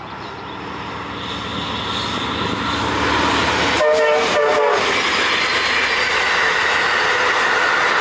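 An Amtrak passenger train's horn sounds as the train approaches at speed, growing louder. As the locomotive passes, about four seconds in, it gives short horn blasts. After that comes the steady rushing and rolling of the passenger cars and wheels going by.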